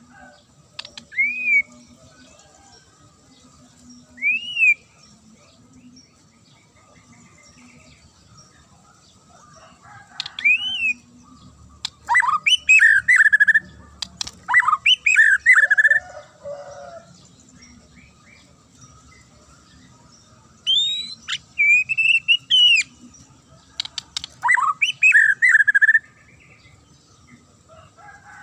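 White-rumped shama (murai batu) singing: a few separate sharp whistled notes that rise and fall, then longer bursts of rapid, sharp phrases in the middle and again near the end.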